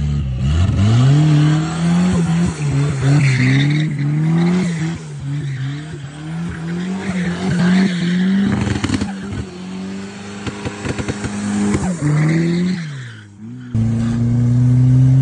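Turbocharged Chevrolet Chevette's engine revved hard up and down over and over, with turbo flutter on the lift-offs and tyre squeal. About 13.7 s in the sound cuts abruptly to the engine held at steady high revs.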